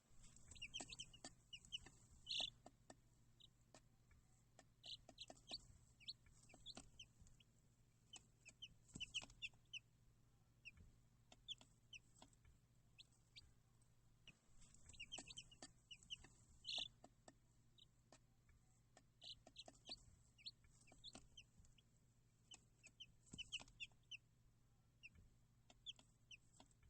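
Baby chicks peeping: many short high-pitched chirps in scattered clusters, over a faint steady low hum.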